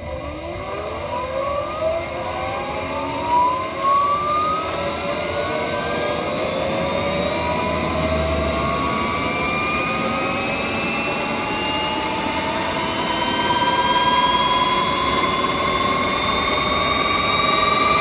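Honda Insight i-MMD electric drive motor and inverter whining while the car accelerates from a standstill on electric power alone. Several whine tones rise steadily in pitch with speed. A steady high-pitched inverter tone steps down in pitch about four seconds in.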